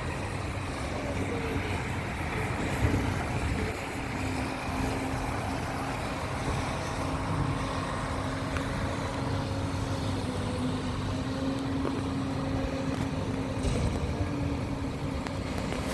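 Steady road-traffic noise in the rain: a low rumble of passing vehicles with a hiss over it, and a steady engine hum through most of it.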